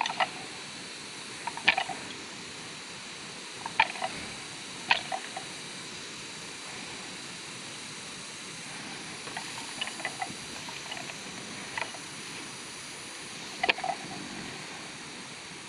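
Two young water buffalo butting heads: irregular sharp knocks from their heads and horns meeting, a second or a few seconds apart, some in quick pairs, over a steady hiss.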